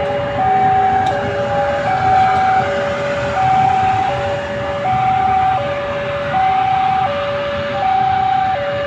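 Two-tone warning signal alternating between a high and a low note, each held for about two-thirds of a second, over a low rumble.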